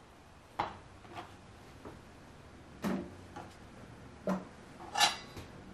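Kitchen knife and mango handled over a plastic cutting board: a handful of short, separate clicks and knocks, including the knife being laid down on the board, the loudest knock near the end.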